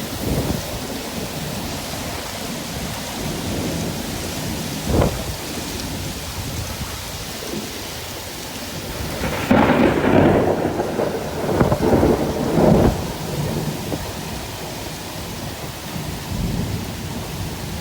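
Thunderstorm: steady heavy rain with thunder, a short sharp crack about five seconds in and a longer rolling rumble with several peaks in the middle.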